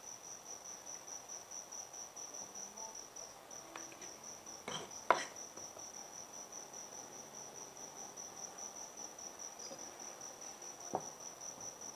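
Cricket chirping in a steady, evenly pulsing trill. A couple of light clicks of a utensil against the dishes about five seconds in, and one more near the end.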